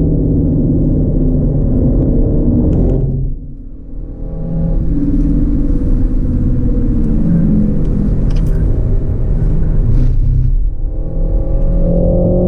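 Renault Megane RS Trophy's turbocharged four-cylinder engine pulling hard. It drops away briefly a little over three seconds in, comes back on, dips again near the end and then rises in pitch as it accelerates.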